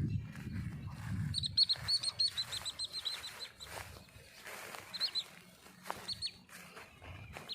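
Small bird calling in a paddy field: a fast run of short, high chirps lasting about two seconds, then a few single chirps. A low rumble underneath dies away about a second in.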